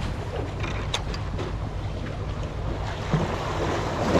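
Wind buffeting the microphone over the wash of sea waves, a steady low rumble, with one sharp click about a second in.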